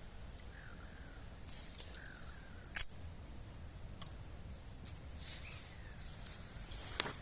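Dry twigs being snapped by hand for kindling: a sharp crack about three seconds in and another near the end, with rustling of brushwood between. A bird calls faintly in the background, short falling notes repeated every second or so.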